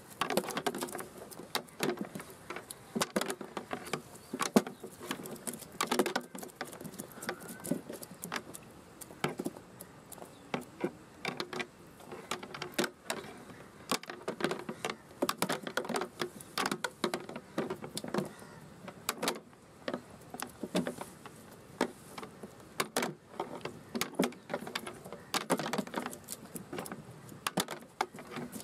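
Live prawns flicking and flapping on a wet plastic sheet, making an irregular patter of quick taps and wet slaps.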